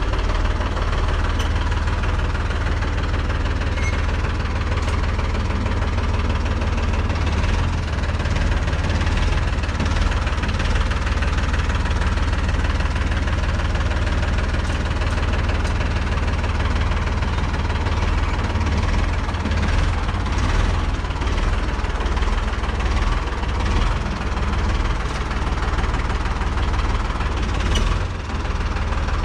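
Ford 3600 tractor's three-cylinder diesel engine running steadily.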